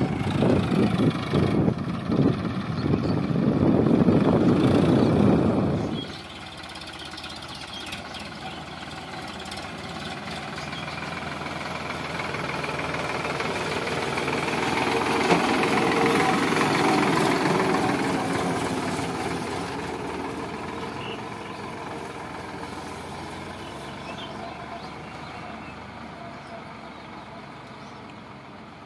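Sonalika DI 745 III tractor's diesel engine working under load as it pulls a rotavator through dry soil, loud until it cuts off sharply about six seconds in. Then the tractor's engine runs more quietly, growing louder as it passes close and fading as it drives away.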